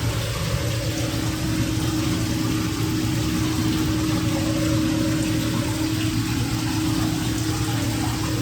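A steady machine hum: a low drone with a single held tone above it, and an even hiss, unchanging in level.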